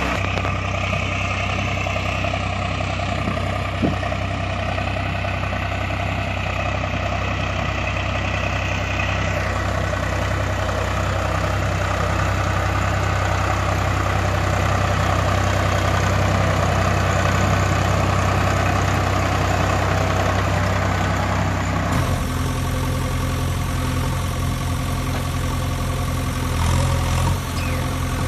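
Engine idling steadily, a low heavy rumble with a constant pitch, which switches abruptly to a different engine sound about 22 seconds in.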